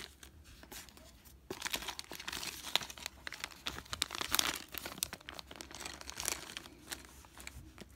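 Clear plastic zip-lock bag of drone propellers crinkling and crackling as it is handled. It starts about a second and a half in and eases off near the end.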